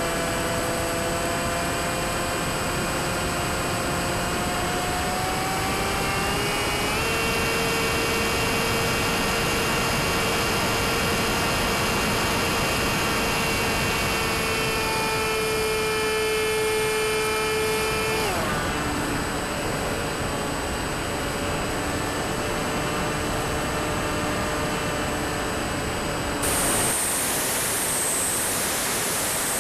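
Electric motor and propeller of an RC flying wing whining, heard through the onboard camera. The pitch climbs slowly for the first several seconds, holds steady, then drops suddenly about two-thirds of the way through, and a rush of wind hiss joins near the end.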